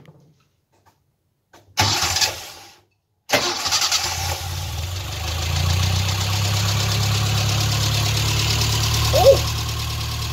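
Classic Mini's four-cylinder A-series engine being started with the key: a short burst of cranking about two seconds in, then the engine fires just over three seconds in and runs steadily. It now starts and keeps running, its carburettor float-needle fault fixed. A brief chirp near the end.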